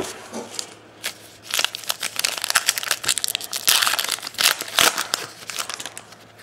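A Topps Allen & Ginter baseball card pack being torn open by hand. The wrapper crinkles and tears in a dense run of crackles that starts about a second and a half in, is loudest past the middle and dies away near the end.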